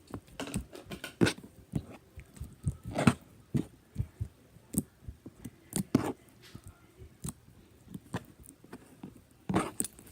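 Hands working homemade slime and its container: irregular short clicks and sticky pops, a little over one a second.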